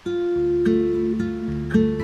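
Background music: a plucked guitar playing sustained notes, a new note struck about every half second.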